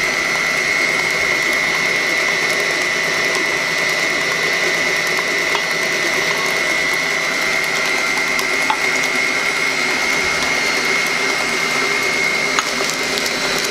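Electric stand mixer running steadily, its beater whipping an egg, sugar and oil batter in a stainless-steel bowl. The motor gives an even whine with a constant high tone.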